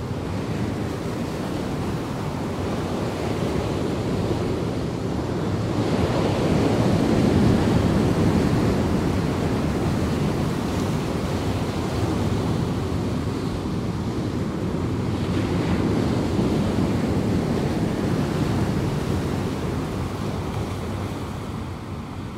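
Heavy ocean surf breaking over a reef, a continuous rushing wash with wind on the microphone. It swells to its loudest about six to nine seconds in, then eases.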